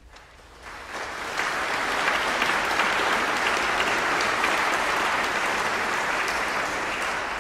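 Audience applauding in a church, the clapping swelling up over the first second or so and then holding steady.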